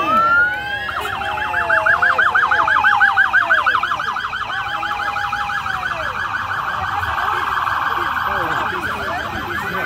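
Emergency-vehicle siren sounding a fast yelp, about eight rising sweeps a second, which speeds up into a rapid warble about five seconds in, over crowd voices.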